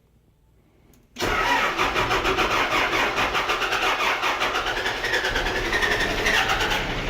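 Caterpillar backhoe's turbo diesel engine being cranked for a cold start: after about a second of near silence the starter kicks in suddenly and turns the engine over in rapid, even pulses, with a high whine that wavers in pitch partway through.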